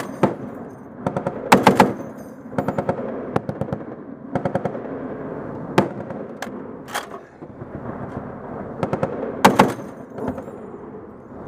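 M2 .50 calibre heavy machine gun firing short bursts of several rounds each, with gaps between bursts and a few single shots. The loudest bursts come about a second and a half in and near the end.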